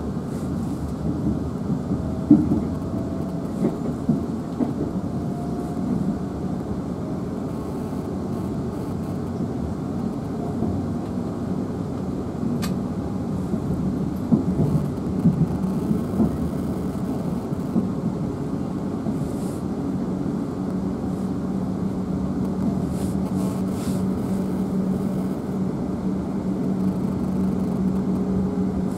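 Steady running rumble of a Class 444 electric multiple unit at speed, heard from inside the passenger saloon, with a few short louder knocks. A steady low hum joins about two-thirds of the way through.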